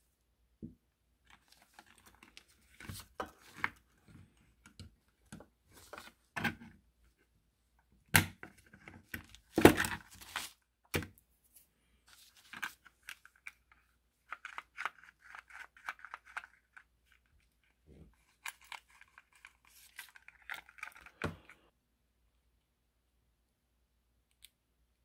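Handling noises from a model locomotive being worked on over paper: scattered clicks and knocks of the plastic and metal body and parts, with the sharpest knocks about eight and ten seconds in, and spells of paper rustling later on.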